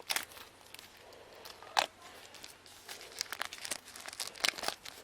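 Plastic shrink wrap being peeled off a CD box set, crinkling and tearing in sharp crackles: a strong one near two seconds in, then a quick run of them in the second half.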